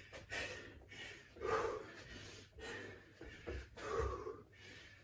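A man breathing hard while exercising, with a forceful breath about every second and a bit.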